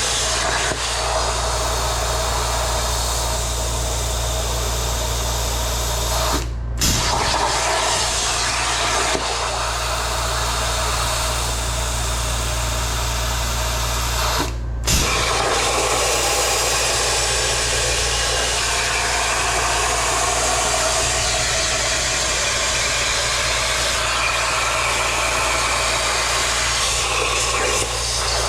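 CNC plasma cutter arc hissing steadily as the torch cuts steel, over a steady low hum. The hiss cuts out briefly twice, about 7 and 15 seconds in, and comes straight back.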